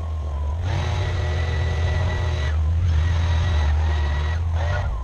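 Bobcat skid steer's engine running steadily, with a thin, steady high whine over the low drone.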